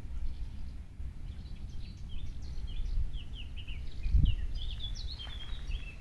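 Wind buffeting the phone's microphone with a low rumble, while a small songbird twitters a quick run of short chirps through the middle and later part. A low thump comes about four seconds in.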